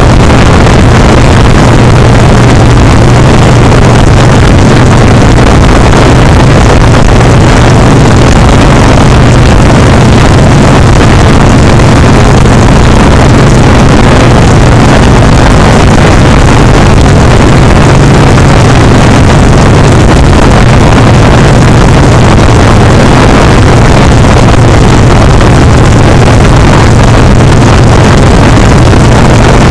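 Harley-Davidson Sportster Seventy-Two's 1200 cc V-twin engine running steadily at cruising speed through its loud pipes, under heavy wind noise on the microphone.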